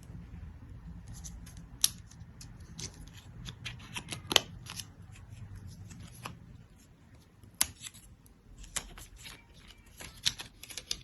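Hands unwrapping a laptop charging cable from its packaging: irregular crinkles, snaps and small clicks, a few sharper ones standing out.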